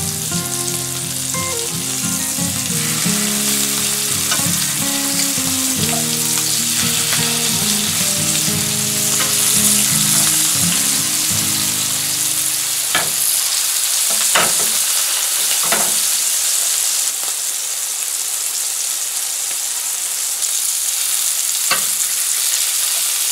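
Marinated pork satay skewers sizzling in hot oil in a frying pan, a steady frying hiss. Soft background music plays under it for about the first half, then fades out. A few light clicks come in the second half, the last as tongs turn a skewer near the end.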